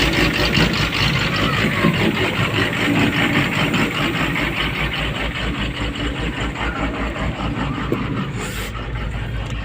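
Komatsu PC200-8 excavator's six-cylinder common-rail diesel engine running with its suction control valve unplugged, its running different from normal. The mechanic suspects a faulty common-rail pressure sensor giving no rail pressure reading.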